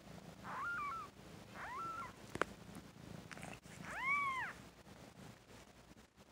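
Cat mewing: three short, high-pitched mews, the third the loudest, over a faint low purr in the first couple of seconds. A single sharp click falls between the second and third mews.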